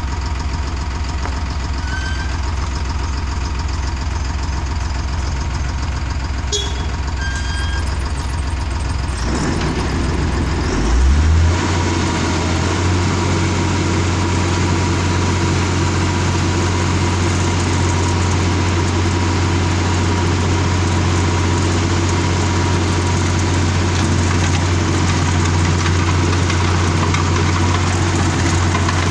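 Wirtgen W1000 cold milling machine running with its diesel engine at a steady low hum. About ten seconds in, the engine note steps up, and a louder, rougher noise joins and holds steady.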